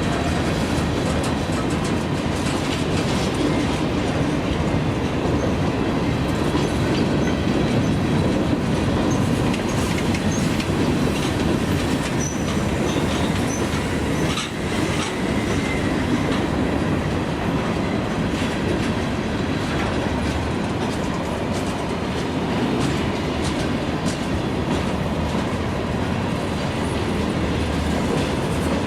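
CSX freight train's cars rolling steadily past, wheels clicking over the rail joints, with a few faint wheel squeals around the middle.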